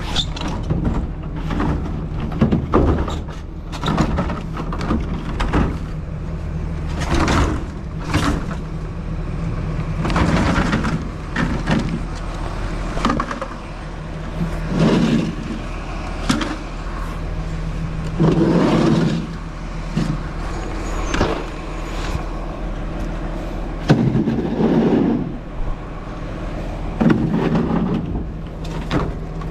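Steady low hum of an idling vehicle engine, with irregular clattering knocks and scrapes of hard objects being moved over it every few seconds.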